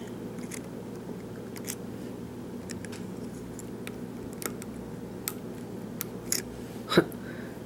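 Faint, scattered clicks and light scrapes of a short hook lock pick working the pin stacks of a padlock's removable core under tension, with a louder click near the end.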